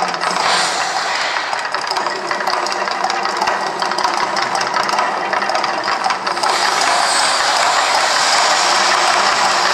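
Gas-fired flame effects of the Mirage volcano show, crackling and hissing. About six seconds in they swell into a steady, louder roar as the volcano erupts in fire.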